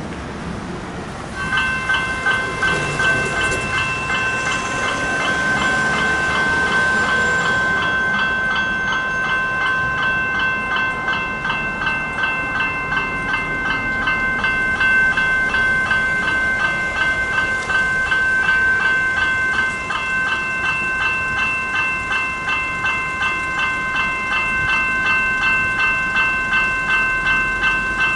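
Two General Signals electronic level-crossing bells (E-Bells) start ringing about a second and a half in and keep ringing in rapid, even, ringing strokes. They are sounding the warning while the boom gates lower for an approaching train.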